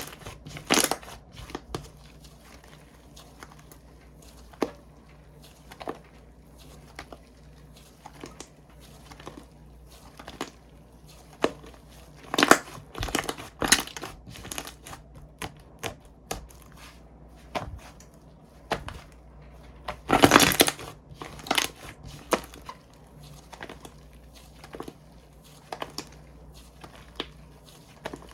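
Slime being squished and pressed by hand, making irregular clicking and crackling pops. The crackles come thicker and louder about 12 seconds in and again about 20 seconds in.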